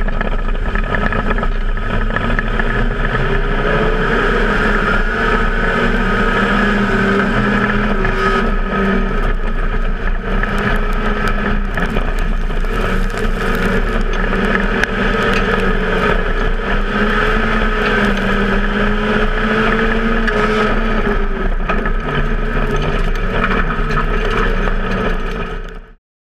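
Mitsubishi Sigma production sedan's engine running hard under race load, heard through the car's own rear-facing onboard camera over wind and tyre noise. It is a loud, steady drone whose pitch rises and falls a little as the throttle is worked, and it cuts off abruptly near the end.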